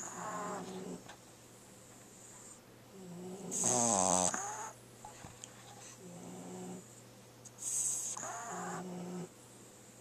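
A short-nosed French bulldog puppy snoring in its sleep, with a snoring breath every two to four seconds. The loudest is a fluttering snore about four seconds in.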